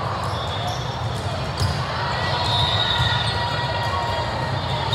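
Echoing din of a busy indoor volleyball hall during a rally: many overlapping voices from players and spectators, with the sharp smack of a ball being hit about one and a half seconds in.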